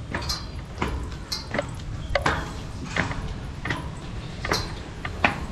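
Footsteps climbing stairs, an even step about every three quarters of a second, over a low steady rumble.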